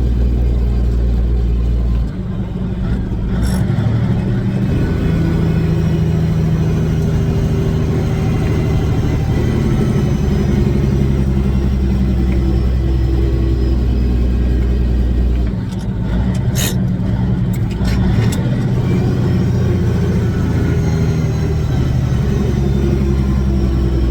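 Kenworth W900's Caterpillar diesel engine running as the truck drives, a steady low drone. The engine note drops and changes briefly twice, about two seconds in and again around fifteen seconds in, with a few sharp clicks near each change.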